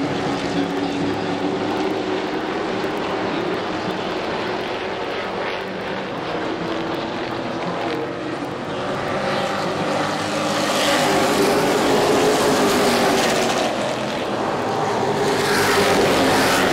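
Pro Truck race trucks' engines running flat out in a pack, their pitch rising and falling as they pass. The sound swells louder twice, around the middle and near the end, as trucks go by.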